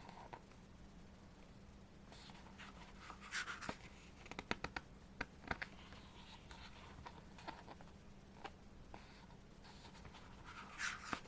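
Quiet handling of a CD album and its photo book: a soft paper rustle about three seconds in and another near the end, like pages turning. Between them comes a quick run of light clicks and taps.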